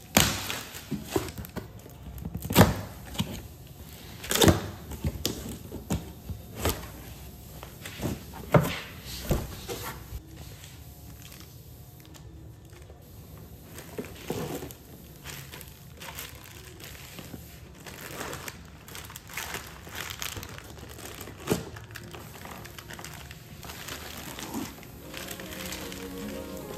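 Plastic packaging crinkling and tearing as things are handled, with sharp knocks and clatters scattered through, loudest and most frequent in the first ten seconds and another knock about twenty-one seconds in.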